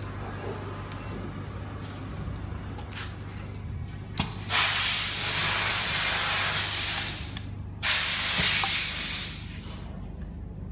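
Semi-automatic soap wrapping machine running with a steady low hum. About four seconds in there is a sharp click, followed by two long, loud hisses: the first lasts about three seconds and the second just under two.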